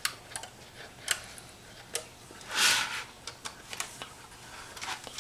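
Small plastic and wooden model parts being handled and fitted by hand: scattered light clicks and taps, with one short, louder rustle about halfway through.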